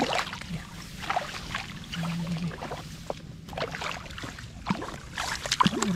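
Shallow water splashing and sloshing in irregular bursts, from wading and grabbing at fish by hand.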